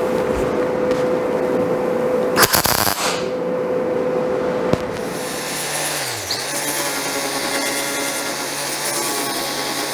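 Electric drill running steadily, drilling holes in the sheet steel of the flames for plug welds, with a short loud noisy burst a couple of seconds in. About halfway through, a power tool with a lower pitch and a high hiss takes over; its pitch sags briefly under load and then holds steady.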